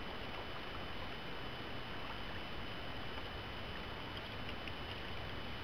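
Steady outdoor ambience on a fishing boat on the lake: an even low hiss with a constant faint high-pitched tone, and a few very faint ticks in the second half.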